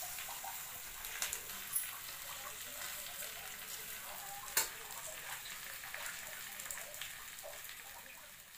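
Food sizzling and crackling as it fries in oil in a wok, with a few sharp clicks, the loudest about four and a half seconds in. The sizzle dies down near the end.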